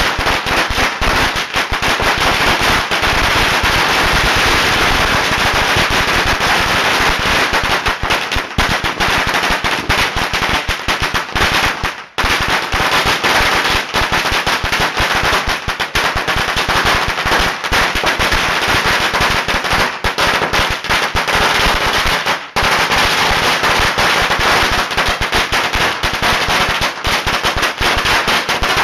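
Firecrackers going off in a loud, dense, unbroken rapid-fire crackle of bangs. The crackle breaks off for a moment twice, about twelve seconds in and again near twenty-two seconds.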